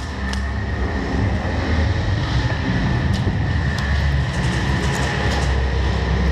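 Loud steady low rumble of an indoor airsoft arena, with a faint high whine over it. Scattered sharp cracks from airsoft guns firing and BBs hitting cover come through it, several of them close together in the middle.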